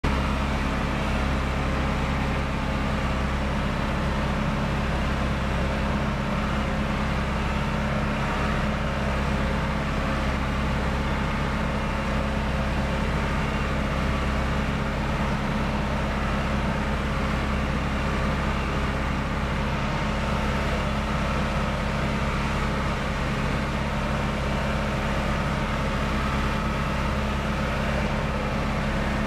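Farm tractor engine running steadily under load while pulling another tractor on a chain, heard from inside the cab as an even drone.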